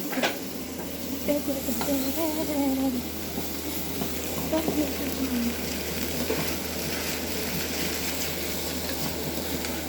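Onions sizzling steadily in a frying pan.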